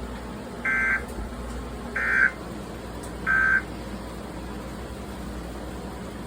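Emergency Alert System end-of-message data bursts from a TV broadcast: three short, harsh two-tone digital bursts about a second apart, signalling the end of the flash flood warning.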